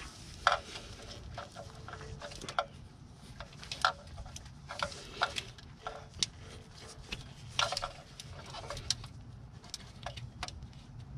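Irregular light clicks and clacks of hand work on a diesel engine: a new position sensor and its fastener being fitted by hand on a Cummins 6.7 ISB, over a low steady hum.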